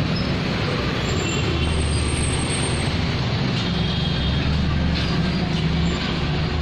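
Steady low rumble and hiss of motor-vehicle traffic.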